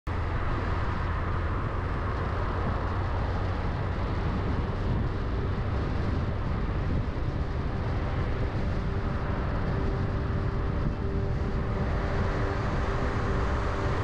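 A car driving at steady speed, heard from inside the cabin: an even engine and road noise, mostly a low rumble, with no changes or bumps.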